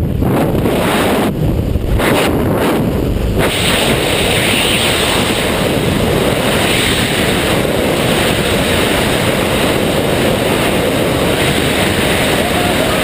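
Freefall wind rushing over a GoPro camera's microphone during a tandem skydive. It buffets in gusts for the first few seconds, then settles into a steady, loud rush.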